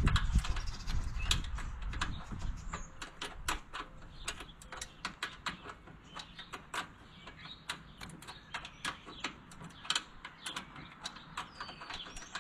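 Hand tools clicking and tapping on metal in irregular strokes, several sharp clicks a second, while working on a garden tractor's seat mounting. A low rumble of handling runs under the first couple of seconds.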